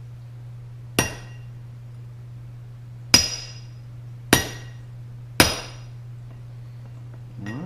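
Hammer blows on a steel vise jaw blank resting on transfer punches, tapping the punches' points into the blank to mark the hole locations. There are four sharp strikes, each with a short metallic ring, over a steady low hum.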